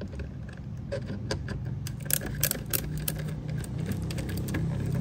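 T25 Torx screwdriver undoing a fog lamp mounting screw: a run of small, irregular metal clicks and ticks, busiest from about two seconds in.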